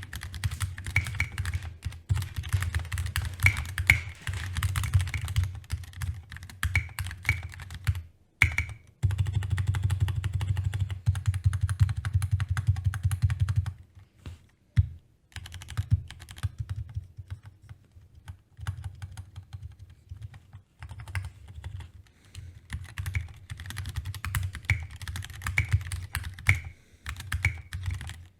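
Typing on a custom mechanical keyboard built with an aluminium plate and hot-swap PCB: quick runs of key clacks with a deep thock, a short stop about eight seconds in, and a sparser, quieter stretch in the middle before fast typing resumes.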